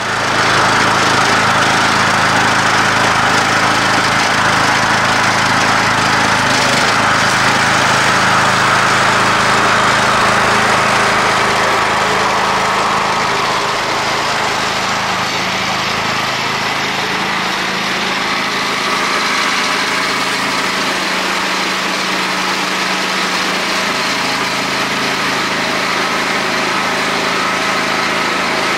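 Gasoline-engine pressure washer running at a steady speed, the small engine's drone mixed with the hiss of the soap spray from the wand.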